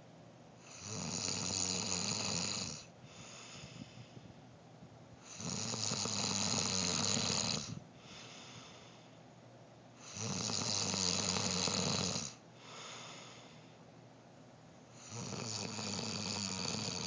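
A man snoring in his sleep: four loud snores of about two seconds each, coming roughly every five seconds, with quieter breaths in between.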